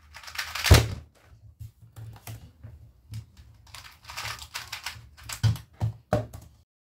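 Quick clicks and clacks of a 2x2 speed cube's plastic pieces being turned, with one sharp louder tap on the laptop keyboard about a second in. The sound cuts off abruptly near the end.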